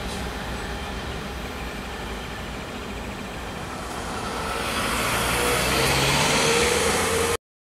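Freight train hauled by GE diesel locomotives running by, a steady rumble of engines and rolling wheels that grows louder in the last couple of seconds, then cuts off suddenly.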